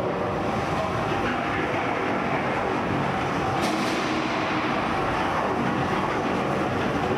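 Tombstone's spinning horizontal bar weapon and drive motors, a steady mechanical whir, with a brief harsher metal-on-metal scrape about three and a half seconds in as it strikes The Judge and throws sparks.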